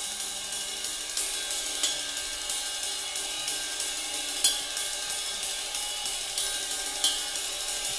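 Quiet opening of a hardcore/screamo track: a drummer keeps a steady pattern on the hi-hat and cymbals, with faint held notes underneath, before the full band comes in.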